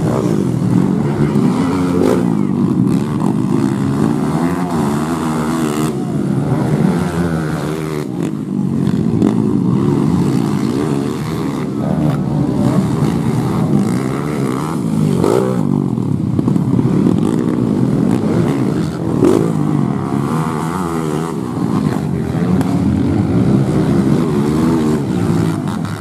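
Four-stroke trail motorcycle engines revving hard over a dirt track, several overlapping, their pitch rising and falling as the riders throttle on and off.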